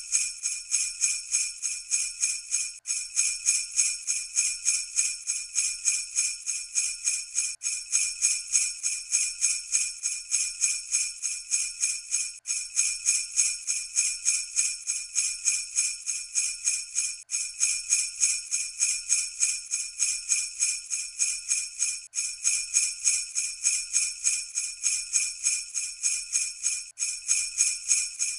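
Sleigh bells shaken in a steady rhythm, about four shakes a second, with no other instruments. The loop breaks off for an instant about every five seconds.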